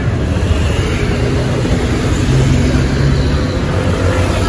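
Road traffic on a busy city street: cars and motor scooters driving past, a steady mix of engine hum and tyre noise.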